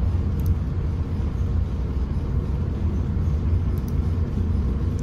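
Steady low rumble and hum of a cargo ship under way, heard on the navigation bridge, with a few faint ticks.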